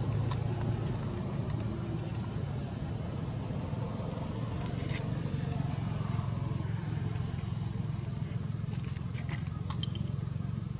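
Steady low engine rumble of motor traffic, with a few faint clicks.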